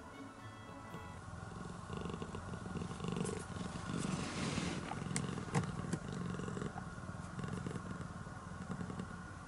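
Domestic cat purring close by: a steady rumble that swells and eases in rhythm with its breathing. A few sharp clicks come about halfway through.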